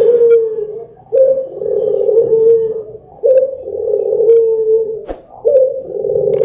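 Puter (Barbary dove) cooing: long low coos repeating about every two seconds, each opening with a short, slightly higher note before the held coo. A single sharp click a little after five seconds in.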